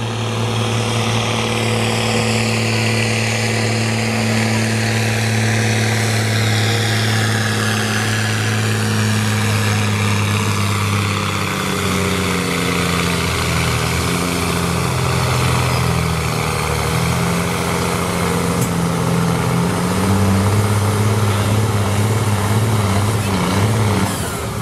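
Farm tractor's diesel engine running at full load while pulling a weight sled, one steady deep drone. About halfway through, the engine note drops and wavers as it labours under the sled, then rises again near the end.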